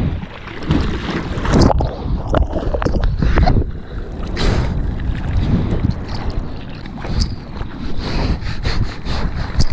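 Seawater splashing and sloshing around a surfboard in the surf, with repeated sharp splashes and wind noise on the microphone.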